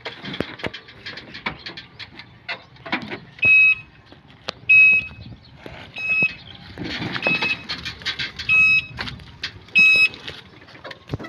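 An electronic beeper sounding six short, high beeps, about one every second and a quarter, amid scattered clicks and knocks.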